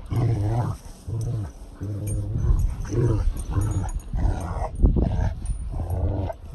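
Dogs play-growling: a run of short, low growls, one after another.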